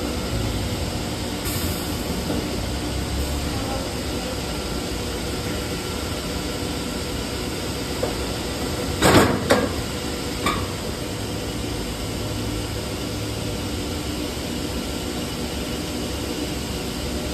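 Steady running noise of HDPE pipe production-line machinery. A sudden loud burst of noise comes about nine seconds in, and a smaller one about a second and a half later.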